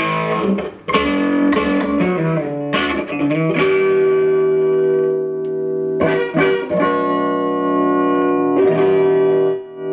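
Electric guitar through a Mesa Triple Rectifier valve amp on its clean channel in pushed mode, just on the edge of breakup. Chords are strummed and left to ring, a new chord every second or two.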